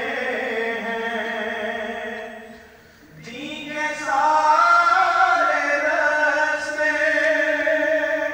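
A solo voice chanting in long, drawn-out melodic phrases, with a pause for breath about three seconds in.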